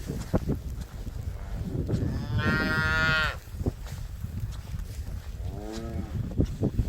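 Beef cow mooing: one loud, long moo about two seconds in and a shorter, fainter one near the end, over a low rumble.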